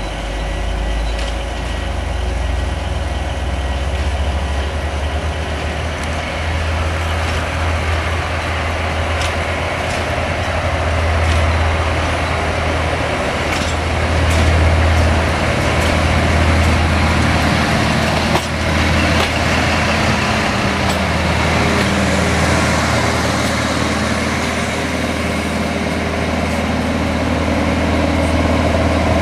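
CFR class 82 (LDH) diesel-hydraulic locomotive running as it approaches and draws alongside, a steady low engine drone that grows louder over the first few seconds, with a few sharp clicks.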